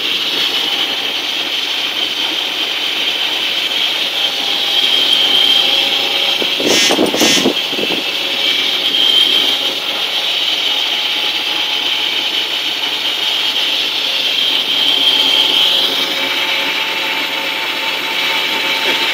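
Inline-six engine idling smoothly on its first run after a new cut-ring head gasket was fitted. About seven seconds in there is a brief noise over the steady idle.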